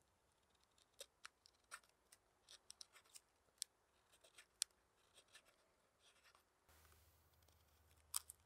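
Hook knife cutting shavings from the bowl of a wooden spoon: a series of short, crisp slicing cuts at irregular intervals, with two louder cuts near the end.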